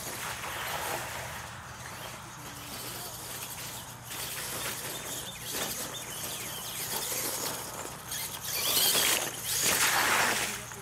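Radio-controlled monster truck ploughing through a muddy water pit, a loud rush of splashing spray lasting about two seconds near the end. Before that, quieter noise of the truck running on the dirt track.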